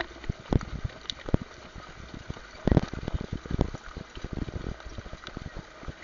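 Wind rumble and buffeting on a helmet camera's microphone, riding in a harness-racing sulky behind a pacing horse, with irregular knocks and thumps as the camera is jolted. The loudest burst of thumps comes a little under three seconds in.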